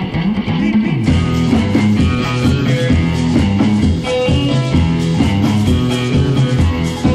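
Rock music with guitar and a steady beat, without singing.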